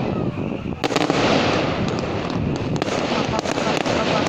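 Fireworks display: a sharp bang about a second in, then continuous crackling with many small pops from the bursting shells.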